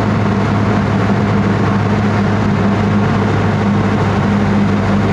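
Small airplane's engine and propeller droning steadily, heard inside the cabin on a night approach.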